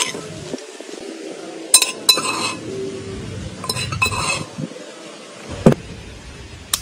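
Metal spoon clinking against a small brass bowl while scooping sugar: two pairs of sharp, ringing taps. A single harder knock follows near the end.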